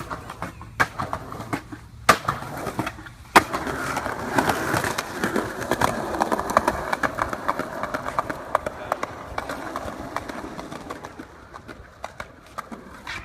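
Skateboard: several sharp clacks of the board in the first few seconds, then the wheels rolling over pavement with a rattle of small bumps, slowly fading.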